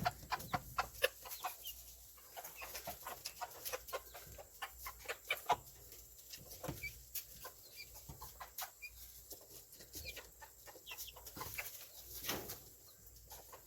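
Chickens clucking, with short high peeps scattered through.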